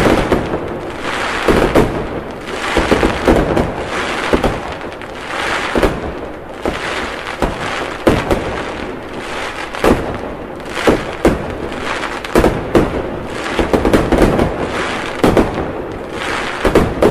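Fireworks going off continuously: many sharp bangs, about one or two a second, over unbroken crackling.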